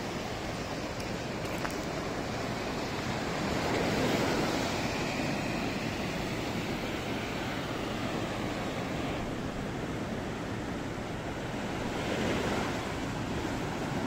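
Small sea waves breaking and washing up over a sandy beach in foam, a steady rush of surf that swells louder twice, about four seconds in and again near the end.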